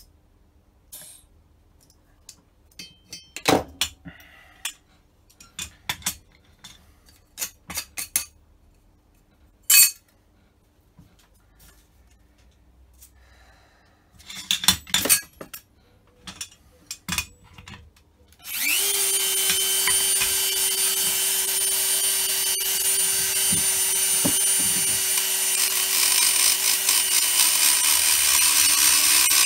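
Clicks and knocks of small carburettor parts being handled, then a Dremel rotary tool spins up about two-thirds of the way in and runs steadily at high speed against a Holley four-barrel carburettor's throttle base plate, getting a little louder near the end.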